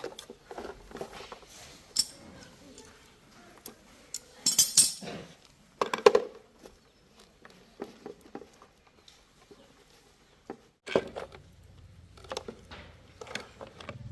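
Scattered clinks and knocks of small metal tools and parts being handled and set down. A steady low hum starts about eleven seconds in.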